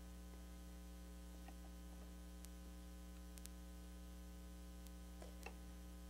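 Near silence: a steady electrical mains hum, with a few faint ticks.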